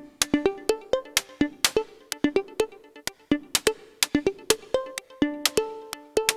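Electronic background music: a quick run of short, sharply struck pitched notes, several a second, each dying away fast.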